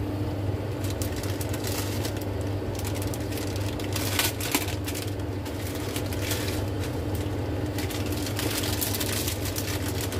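Fried eggs sizzling in a pan over a steady low hum, with crinkling of a plastic instant-noodle packet being handled and opened around the middle.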